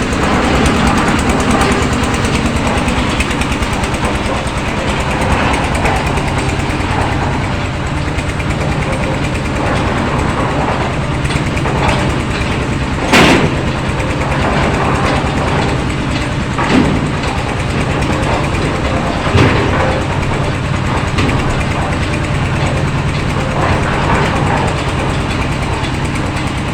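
An engine running steadily, with three sharp knocks around the middle.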